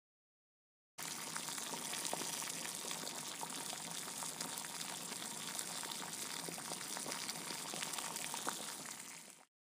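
A steady hiss full of small crackles starts suddenly about a second in and fades out near the end.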